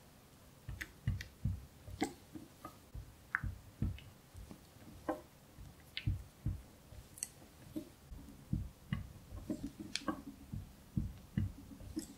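Silicone spatula stirring and scraping a thick cream cheese mixture in a glass bowl: irregular soft knocks and clicks against the glass, about one or two a second.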